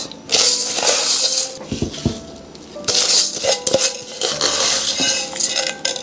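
Coarse sea salt poured from a plastic bag into a glass jar, its grains hissing and clinking against the glass as they land on the salted shrimp, in two pours with a short pause between.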